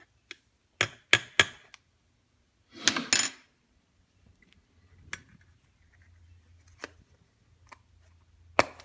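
Cups and kitchenware being handled: a few sharp clinks and knocks, three in quick succession about a second in, with a short scraping rattle about three seconds in and single clinks later.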